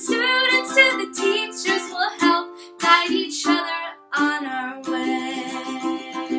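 A woman singing with her own strummed ukulele accompaniment. In the second half the strumming grows more even, with a chord about every half second under a held sung note.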